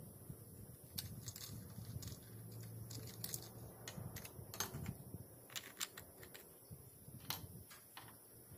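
Faint, scattered light clicks and taps, irregularly spaced, over a low rumble.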